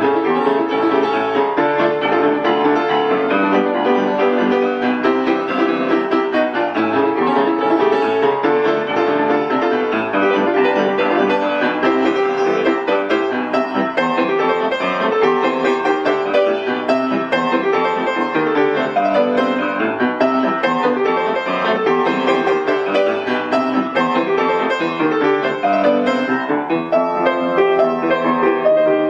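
Piano music, starting abruptly at a cut.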